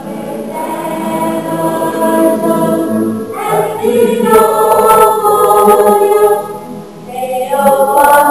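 Choral music: a choir singing held chords that change a few times, building in loudness over the first seconds, dipping briefly near the end and swelling again.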